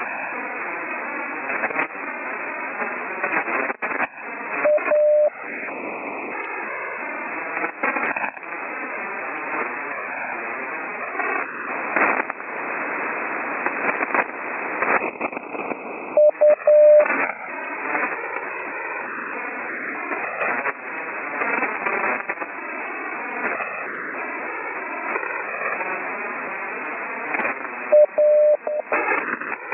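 Slow Morse code (CW) heard through an HF receiver: a steady tone of about 600 Hz keys out a short letter three times, roughly twelve seconds apart, over constant band hiss. Crackles of static run through the hiss, typical of rough HF conditions during a lightning storm.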